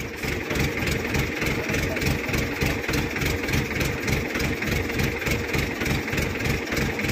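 Heavy diesel engine idling with a steady, even throb.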